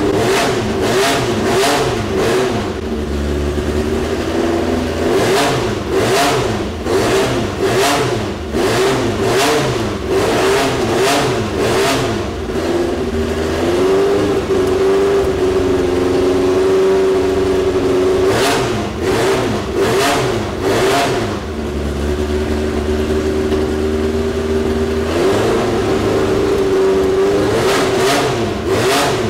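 A 2.4-litre naturally aspirated four-cylinder Nissan race engine running on its first start after a rebuild, with repeated clusters of quick throttle blips between steadier stretches.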